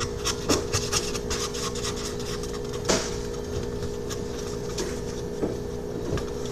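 Slime mixture being stirred in a bowl, with quick scraping strokes over the first second and a single knock about three seconds in. A steady hum runs underneath.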